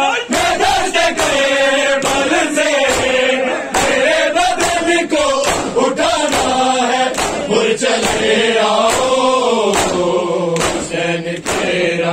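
Crowd of men chanting a Shia noha together, with regular sharp slaps of hands striking chests (matam) keeping the beat.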